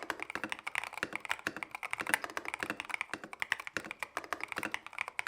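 Typing on an EPOMaker Brick 87 mechanical keyboard with factory-lubed linear switches: a steady, rapid run of keystrokes.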